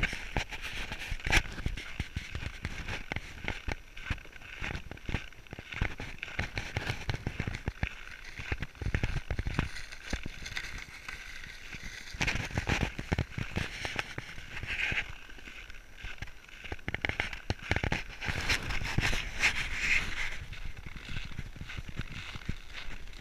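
Footsteps on frozen, hard-packed snow, with a pulk sled being dragged over the snow: a steady hiss under an irregular run of short crunching sounds.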